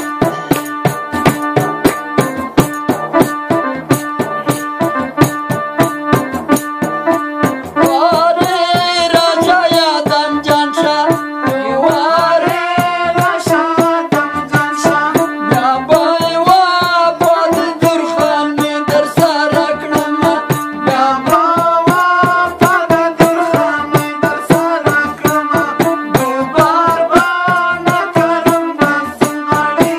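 Local folk music: a large hand-struck frame drum (daira) beats a fast, steady rhythm under a melody on an electronic keyboard. A voice joins in singing about eight seconds in.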